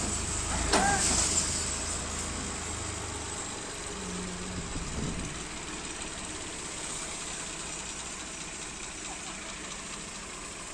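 Al-Ghazi tractor's diesel engine idling with a steady low rumble that drops away after about three seconds, leaving faint background noise.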